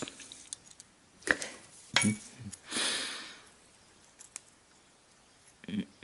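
Small clicks and taps as tiny wooden rigging blocks and a small tool are handled over little metal dishes, the sharpest clicks about a second and two seconds in, with a short breathy hiss around three seconds in.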